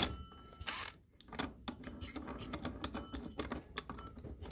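A brief burst from a cordless impact driver right at the start, loosening a chainsaw clutch. It is followed by faint, irregular light clicks and rattles of the clutch's metal parts as it is spun off by hand and set down.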